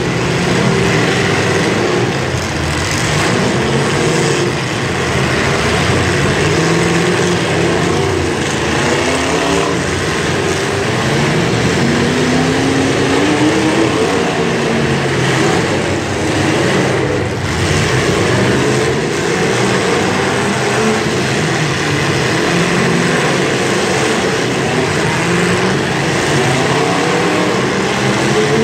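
Several demolition derby cars' engines revving at once, their pitches rising and falling over one another continuously.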